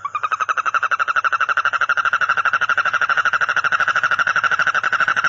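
A frog calling in a rapid, steady, pulsed trill that starts abruptly and runs on unbroken.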